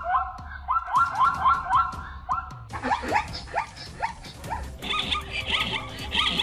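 A rapid series of short, rising chirping calls, about three or four a second, with steady held tones joining about two-thirds of the way in.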